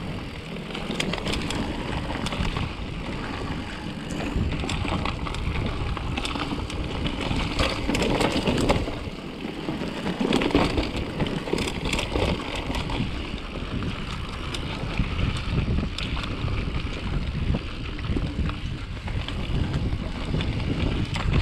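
Mountain bike rolling fast down a dirt trail: steady wind rush over the microphone and tyre noise, with frequent clicks and rattles from the bike over bumps.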